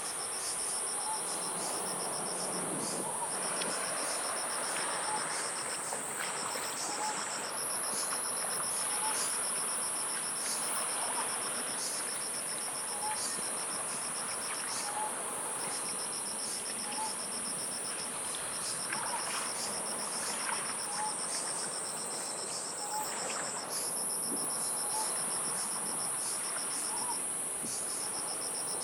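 Crickets and other insects trilling steadily: one continuous high-pitched trill and another insect's fast pulsing song over it, above a soft, even wash of surf. A faint short call repeats about every two seconds.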